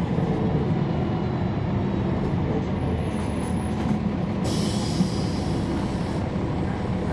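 Steady low rumble heard from inside a 2011 NABI 40-SFW transit bus running on its Cummins ISL9 diesel engine. A hiss comes in about four and a half seconds in and lasts under two seconds.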